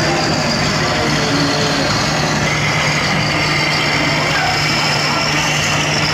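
Scale RC Scania truck's simulated diesel engine sound running steadily with a constant low hum as the truck creeps forward under load.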